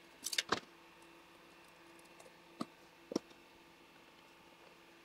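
Small sharp metal clicks from handling the thread tension assembly on a Consew 226 industrial sewing machine as it is taken off: a quick cluster of clicks in the first second, then two single clicks about half a second apart near the middle.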